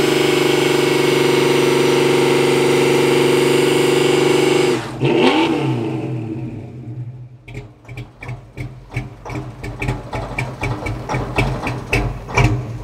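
Dodge Dart GT's engine held at high revs in a burnout, a loud steady engine note with the rear tyre spinning. About five seconds in the revs fall away suddenly and the engine settles into a rough, uneven idle with irregular pops from the exhaust.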